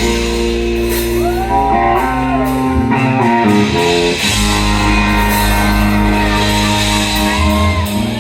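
Live country-rock band playing an instrumental stretch of the song: guitar over held chords, with bass and drums.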